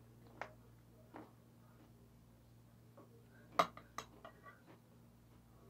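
Metal spoon or fork clinking against a ceramic bowl: a couple of light clicks, then a quick cluster of sharper clinks about three and a half seconds in.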